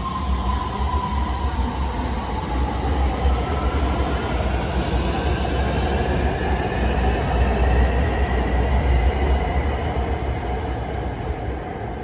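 Beijing Subway Line 8 train accelerating out of the station, heard from the platform. A whine climbs steadily in pitch over a deep rumble, loudest a few seconds before the end, then fading as the train leaves.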